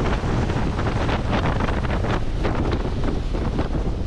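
Wind buffeting the microphone over the steady rush of churning wake and spray from a Princess F70 motor yacht running at speed into the wind.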